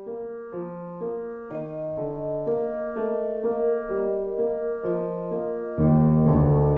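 Background music: a keyboard plays a steady line of notes, about two a second, growing louder. Near the end a louder, fuller layer with deep bass comes in.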